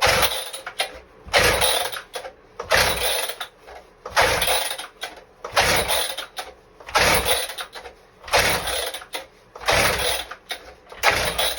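Recoil starter of a Partner K750 two-stroke concrete cut-off saw being pulled on full choke: nine hard rope pulls, about one every second and a half, each a short rasping whir, and the engine does not catch between them.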